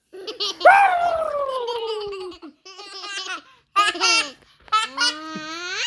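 Toddlers laughing and squealing: a long falling squeal, then short bursts of laughter, then a squeal that rises in pitch near the end.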